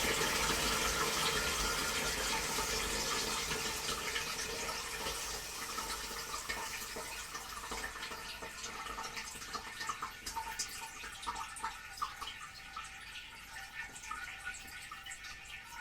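Household toilet after a flush: the rush of water running into the bowl and cistern tapers off steadily, giving way to scattered trickles and drips as it settles.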